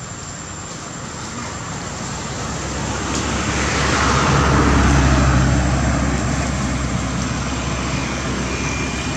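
A motor vehicle driving past: its engine hum and road noise swell to a peak about five seconds in and then fade away.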